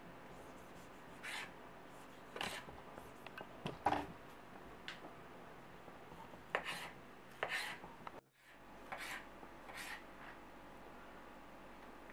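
Kitchen knife slicing tomatoes on a plastic cutting board: short, irregular cutting strokes, about one a second.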